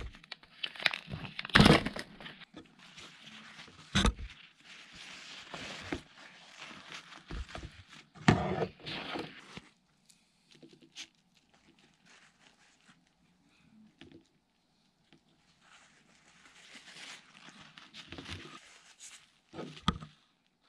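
Thin plastic film wrap crinkling and tearing as a food tray is unwrapped and handled, with several sharp knocks in between.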